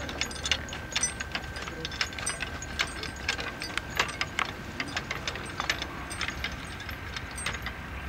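Horse-drawn wheeled plough and the horses' trace chains rattling and clinking irregularly, several knocks a second, as the team pulls the plough through the soil.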